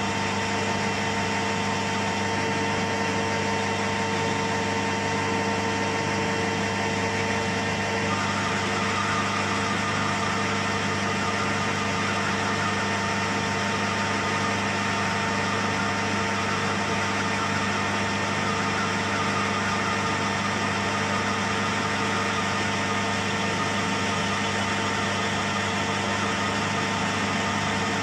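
Metal lathe running steadily while a cutting tool turns a small metal shaft down to size. About eight seconds in, the note of the cut shifts, a lower tone dropping out and a higher one coming in.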